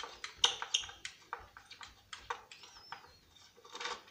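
Screwdriver working screws out of an old Sony turntable's base: a quick, irregular run of short clicks and scrapes of metal on metal, with a louder scrape near the end.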